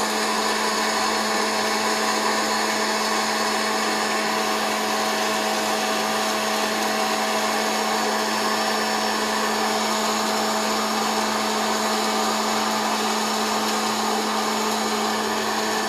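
Hot-air popcorn popper running: its fan blows a steady rush of air over a constant low hum.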